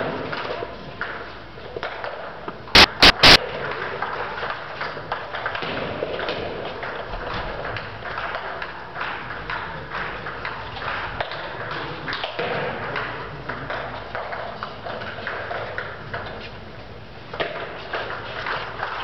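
Table tennis ball clicking off the table and the bats, sharp irregular knocks that echo in a large hall. About three seconds in there is a quick run of four very loud, distorted pings.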